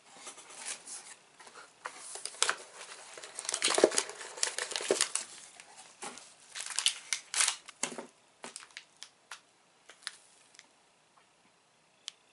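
Plastic snack wrappers crinkling and rustling as they are handled, in irregular crackles that are busiest for the first eight seconds and thin out to a few light clicks near the end.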